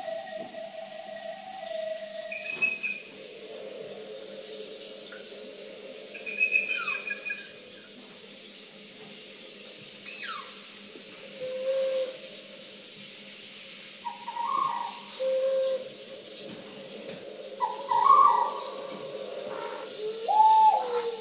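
Scattered whistle-like calls over a faint steady drone: short held notes, quick falling pitch sweeps and warbling notes, one every few seconds. The loudest are a sharp high sweep falling steeply about ten seconds in and a warble about eighteen seconds in.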